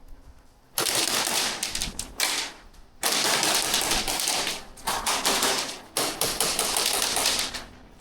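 Airsoft guns firing in full-auto bursts of rapid clicking pops, about four bursts of a second or two each with short pauses between.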